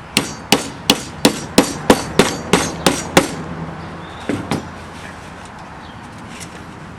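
Hammer face tapping the metal spline of an Andersen window screen down into the frame's channel: a steady run of about ten sharp, ringing taps, roughly three a second, then two lighter taps a little past the middle before they stop.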